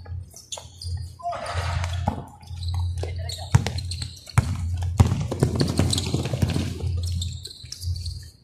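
A basketball bouncing on a court, several sharp thuds spread out, among players' shouts, over a steady low hum.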